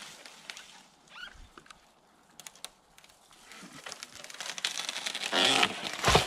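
Twigs and dry leaf litter rustling and crackling, building over a couple of seconds to a loud crash with a heavy thud near the end.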